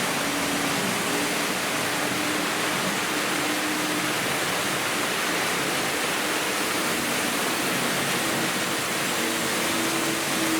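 Several Märklin H0 model trains running at once: a steady rushing noise of metal wheels rolling on the track, with a faint motor hum that comes and goes.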